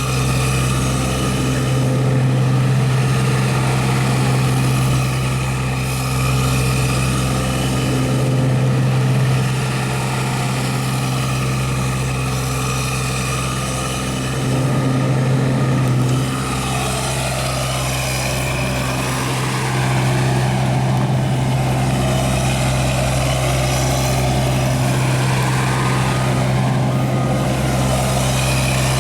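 Kubota U-17 mini excavator's diesel engine running steadily, its note swelling and easing several times as the machine is worked, with extra mechanical noise joining in the second half.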